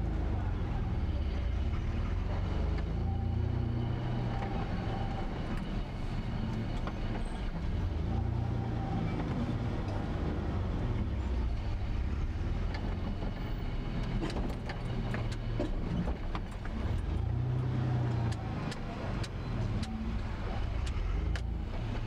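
Car engine and road noise from a vehicle moving slowly, a steady low rumble whose pitch rises and falls a little, with scattered light clicks and knocks in the second half.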